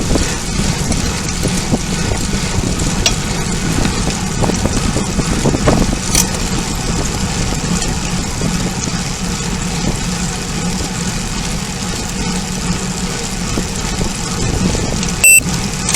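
Steady rushing wind and road noise on the microphone of a rider on a moving road bike. A brief loud blip comes about a second before the end.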